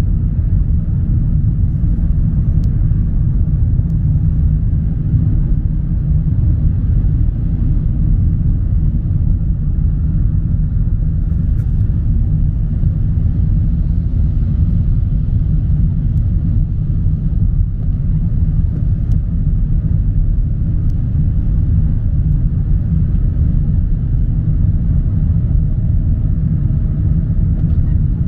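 Steady low road and engine rumble of a moving car heard inside its cabin, with a few faint ticks now and then.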